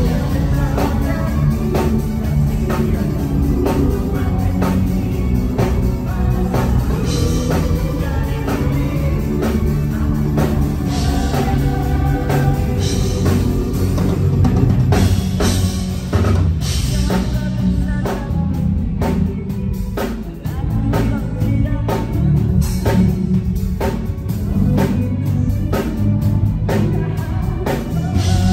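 Live band playing a pop-rock song, with drum kit, bass and guitar, and a woman and a man singing into handheld microphones.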